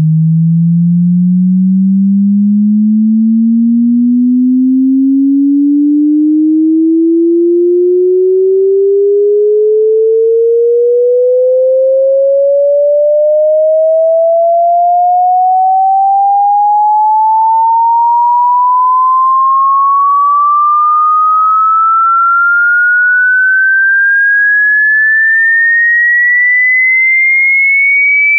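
Pure sine-wave test tone sweeping steadily upward in pitch, from about 156 Hz to about 2.3 kHz, at a constant loud level: a frequency sweep (chirp) test signal.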